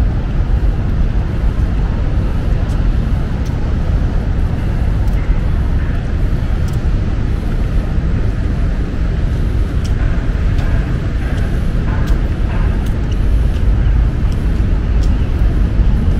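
City street ambience: a steady rumble of road traffic, with a few scattered clicks and faint passing voices about two-thirds of the way through.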